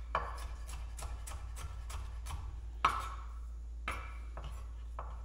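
Chef's knife julienning bell pepper on a wooden cutting board: quick, even knocks of the blade on the board, about three to four a second, with a couple of harder strikes.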